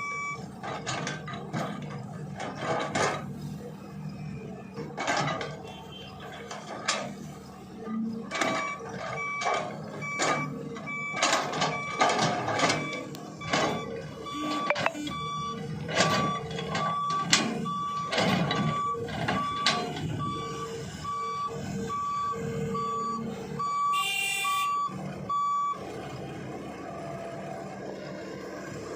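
Heavy machinery running, with repeated knocks and clatter throughout. A vehicle backup alarm starts beeping evenly about a third of the way in and stops near the end. Near the end there is a brief, loud, piercing tone.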